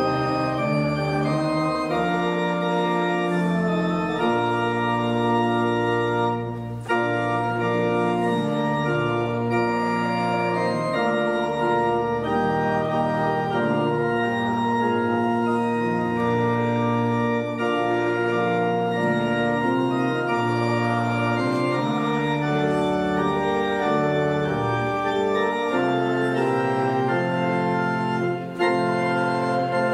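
Church organ playing a hymn tune in held chords that change step by step, with short breaks between phrases about seven seconds in and again near the end.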